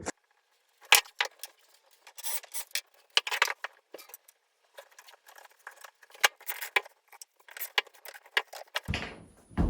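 Irregular light knocks, clacks and scrapes of wooden pieces and metal brackets being handled and set in place.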